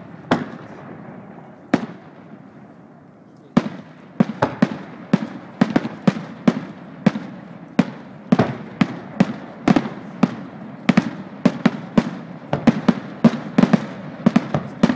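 Aerial fireworks shells bursting: a few separate bangs at first, then from about three and a half seconds in a quick, unbroken run of bangs, two or three a second.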